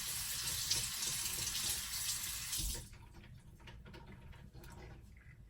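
Water running in a steady stream for a few seconds, then cutting off sharply, followed by faint small clicks.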